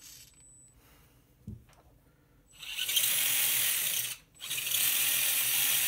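The 17-turn electric motor and geared drivetrain of a Redcat Everest Gen7 Sport RC crawler spinning the wheels in the air, in two fast bursts of about a second and a half each with a short break between them, starting about halfway in. The 17-turn motor is far too fast for a crawler in the owner's view.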